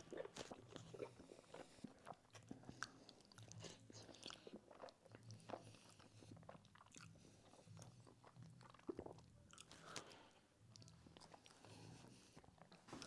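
Faint, close-miked chewing and eating sounds of a person eating hot, sticky food with his fingers, with many small wet clicks from the mouth and food throughout.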